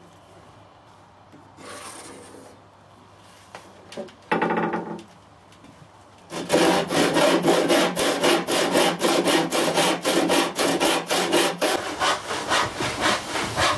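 Hand saw cutting across a pine board, its teeth rasping through the wood in steady back-and-forth strokes, about three a second. The sawing starts about six seconds in, after a few brief quieter scrapes.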